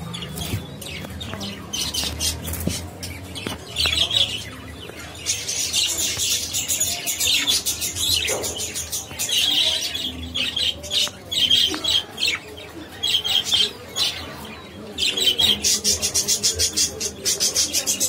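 Budgerigars chirping and chattering in repeated high bursts, with fast runs of clicking chatter near the end.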